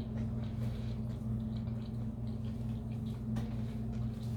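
Steady low hum, with faint soft wet mouth sounds and small clicks of someone chewing a bite of fried chicken sandwich.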